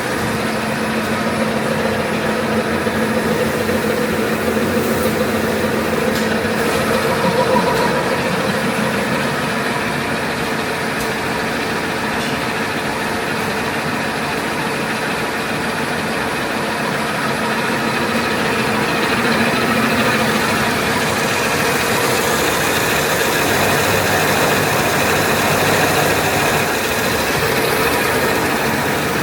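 ATR-320B automatic turret rewinder (label rewinding machine) running at production speed, about 105 metres per minute: a steady mechanical whirring with a constant low hum.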